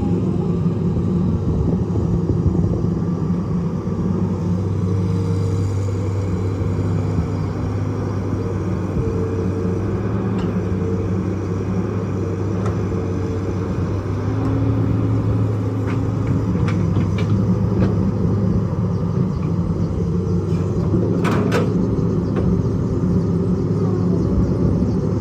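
Hitachi EX200 excavator's diesel engine running steadily under load while it works, its pitch shifting a little as the hydraulics are worked. A few faint clicks, then a short sharp noise near the end.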